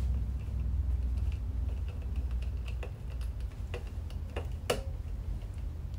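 Small screwdriver tightening a screw terminal on a thermostat to clamp a wire: scattered light clicks and ticks, the sharpest about four and a half seconds in, over a low steady hum.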